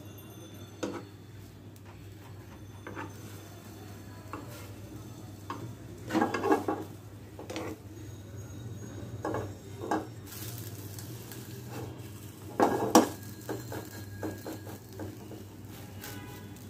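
Cooking utensils clinking and scraping against a pan in scattered knocks, the loudest clatters about six and thirteen seconds in, over a steady low hum.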